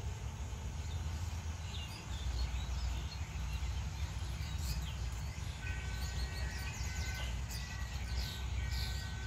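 Outdoor rural ambience: small birds chirping on and off over a steady low rumble, with a thin steady tone joining a little past halfway.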